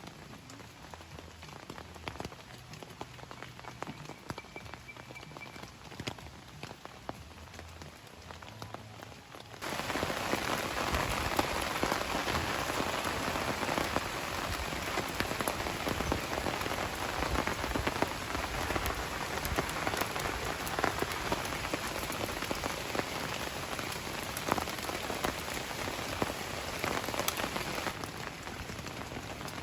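Rain falling, a steady patter of drops. About ten seconds in it abruptly becomes a much louder, dense downpour, easing slightly near the end.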